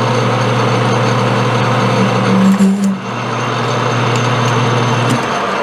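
Metal lathe running steadily with a hum from its motor and gearing while taking a final turning pass on a mild steel part. The hum briefly dips about three seconds in and stops shortly before the end.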